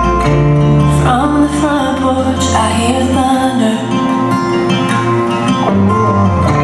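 Music for a dance routine: a song with guitar accompaniment and a singing voice, loud and continuous.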